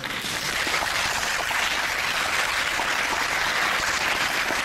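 An audience starts applauding, a dense steady clapping of many hands.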